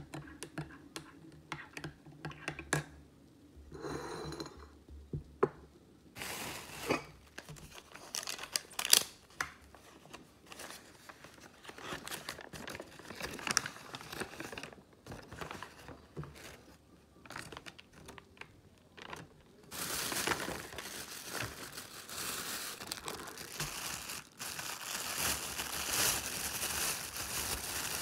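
A few light spoon clicks against a glass near the start, then paper and plastic food wrappers being opened and handled, crinkling and tearing with sharp rustles. From about two-thirds of the way through, a thin plastic bag crinkles steadily and more loudly as hands rummage in it.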